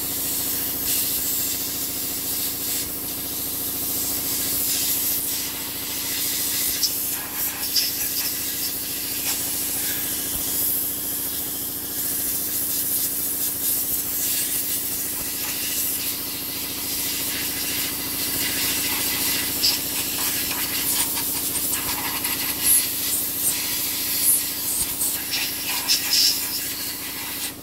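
A steady hum with hiss throughout, with scattered light metallic clicks and scrapes from a screwdriver working inside a cast-metal shift motor housing.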